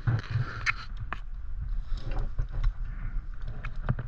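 Scattered light clicks and knocks of a bicycle chain and drivetrain being handled during fitting, over a low background hum.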